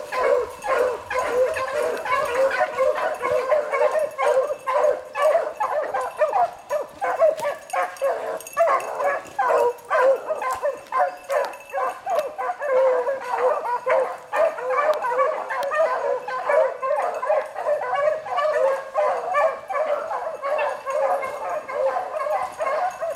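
A pack of beagles baying as they run a rabbit's track: many short cries overlapping in a continuous chorus that never breaks. This is the hounds giving tongue on the scent during the chase.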